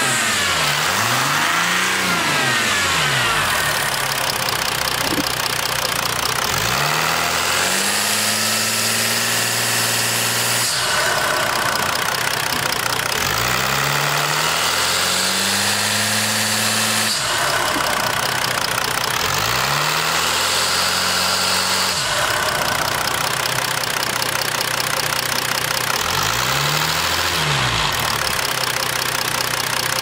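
Mercedes OM642 3.0-litre V6 turbodiesel in a Jeep Grand Cherokee CRD, heard with the hood open, idling and revved up several times, each rev rising and falling back, some held high for a few seconds. The engine is being run to find a noise under throttle that the owner suspects is an exhaust leak ahead of the turbo.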